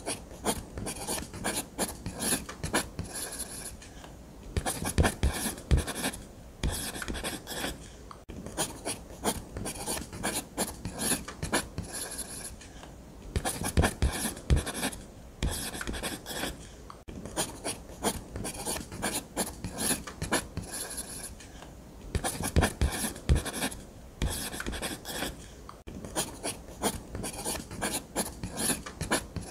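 Ballpoint pen drawing on paper: quick scratching strokes in runs of a few seconds, with short pauses between them.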